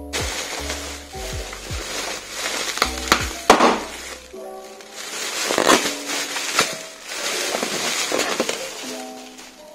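Plastic air-pillow packing crinkling and rustling in bursts as it is handled and pulled out of a cardboard box, with the loudest rustles about three and a half and six seconds in. Soft background music plays throughout.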